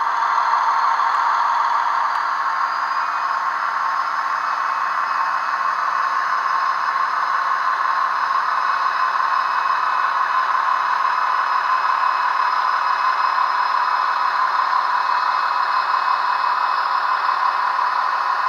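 Model locomotive's ESU LokSound V4 sound decoder playing a steady locomotive running sound through its small loudspeaker. It swells a little at the start, then holds level, with a faint thin tone running above it.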